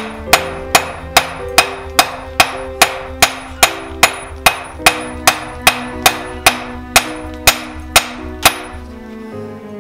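Hand hammer striking a glowing arrowhead blank of hot steel on an anvil, forging it: about twenty evenly spaced blows at roughly two and a half a second, stopping near the end. Guitar music plays underneath.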